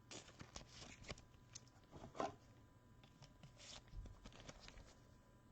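Faint rustling and light clicks of trading cards being handled, with one slightly louder rustle about two seconds in.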